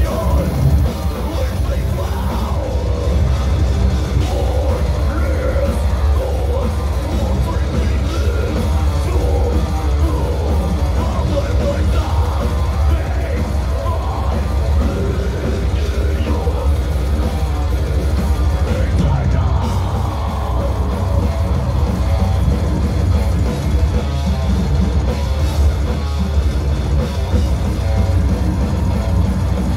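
A technical death/thrash metal band playing live: distorted guitars, fast drums and shouted harsh vocals, recorded from the crowd. The sound is loud and dense throughout, with a heavy, boomy low end.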